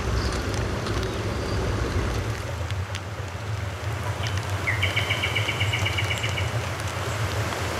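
Outdoor ambience: a steady low rumble with wind hiss, a few faint crackles of a wood fire in the first seconds, and a bird's rapid trill of repeated high notes lasting about two seconds, starting about four seconds in.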